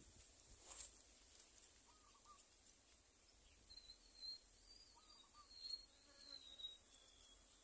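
Faint outdoor ambience: a steady high insect drone, with distant bird chirps and wavering whistled calls from about halfway through, and one small click about a second in.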